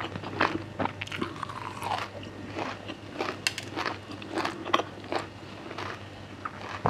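Close-up chewing and crunching of a mouthful of miang kham, a leaf wrap filled with fried red weaver ants, as a run of irregular crisp crunches.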